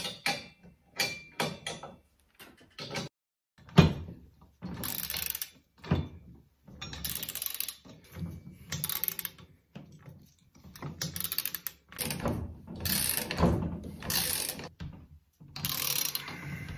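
Ratcheting torque wrench tightening the steel pivot joint bolts of an ATV implement lift to 70 foot-pounds. A few separate clicks come first, then repeated runs of rapid ratchet clicking with short pauses between strokes.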